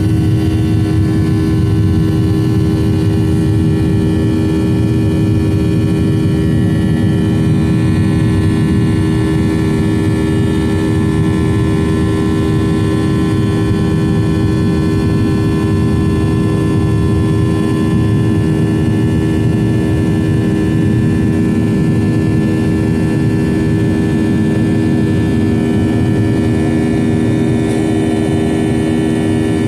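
Boeing 737-800's CFM56-7B jet engines heard inside the cabin from a window seat: a loud, steady rumble with an even hum on top that barely changes.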